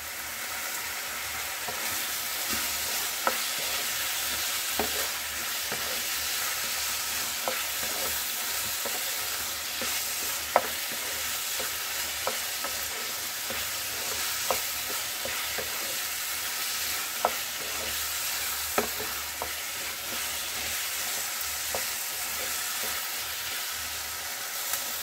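Chicken mince and peas sizzling as they fry in a nonstick kadai, stirred with a spatula that scrapes and taps against the pan every second or two: the mince being bhuna-fried with spices.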